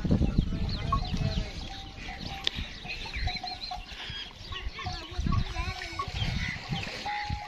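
Birds chirping and calling: many quick, high chirps, with a repeated short lower call. Irregular low rumbling bursts run underneath.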